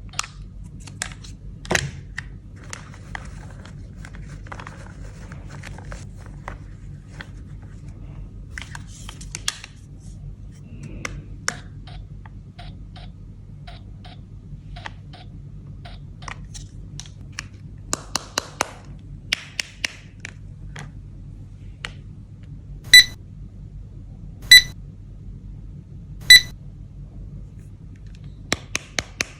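Plastic toy pieces from a toy doctor playset being handled, with scattered clicks and taps, then three loud electronic beeps from a toy about a second and a half apart in the second half, over a steady low hum.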